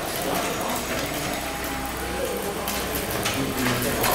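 Chatter of voices in a hall, with scattered mechanical clicks and whirring from a model hydraulic excavator as it tips a bucket of soil into a model dump truck and swings back.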